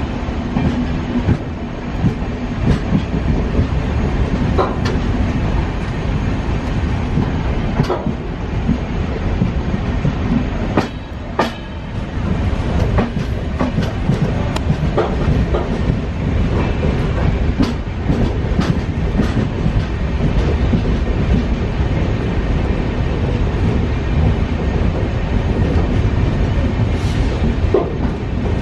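Moving passenger train heard from an open window or door of its own coach: a steady rumble of wheels on the rails, broken by irregular clicks and clacks as the wheels pass rail joints.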